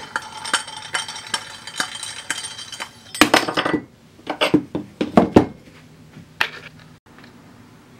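Metal clicking and clinking as the restrictor plate's threaded rod is turned and the galvanized pipe fittings of a propane forge burner are handled, then a loud clatter about three seconds in and a few knocks as the metal parts are set down on the bench.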